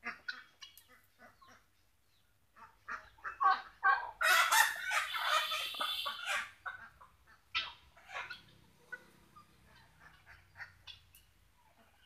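Farmyard poultry flock calling. Short scattered calls are broken about four seconds in by a loud, harsh chattering outburst that lasts around two seconds, then scattered calls again.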